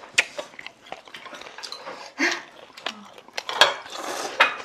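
Eating utensils clinking and tapping against bowls and dishes during a meal: a few sharp clicks, the loudest about three and a half seconds in, with short bursts of eating noise in between.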